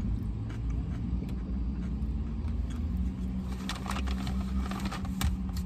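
Steady low hum of a parked car running, heard from inside the cabin. There are light clicks and rustles, mostly around four to five seconds in, from chewing and handling a takeout bowl.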